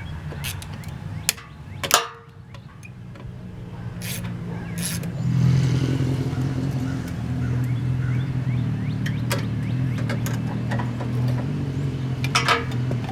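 Scattered metallic clicks and knocks of hand work on the car during radiator removal, the sharpest about two seconds in, over a steady low hum that grows louder about five seconds in.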